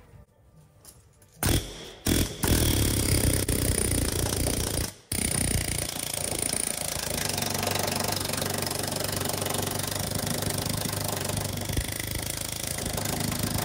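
Worn needle scaler, most of its needles missing and its head loose, hammering on rust and scale: two short bursts, then steady running with a brief stop about five seconds in. It is not working as it did when new.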